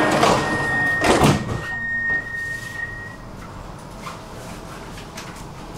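Stockholm subway train's sliding doors closing: a steady high warning tone, then the doors shut with a loud clunk about a second in. The tone fades out a couple of seconds later.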